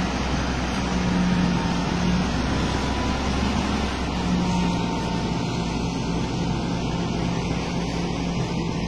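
Steady engine noise of heavy military vehicles on an airfield, with a low hum and a faint thin whine running through it.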